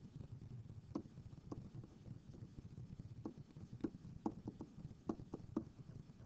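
Faint, irregular clicks and taps of a pen stylus on a tablet screen as words are handwritten, about a dozen in all, over a low steady hum.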